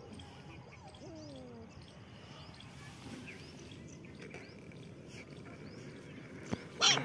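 Faint animal calls over a quiet outdoor background: a short falling whine about a second in and scattered small high chirps, then a brief louder cry just before the end.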